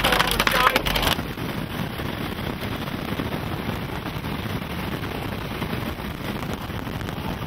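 Steady rumbling wind and road noise heard from inside a moving vehicle. The first second is louder, a hiss with a few squeaky glides, and it stops abruptly about a second in.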